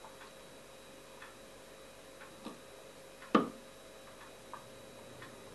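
Faint, regular ticking about once a second, like a clock. About three seconds in there is a single sharp knock or clink, the loudest sound.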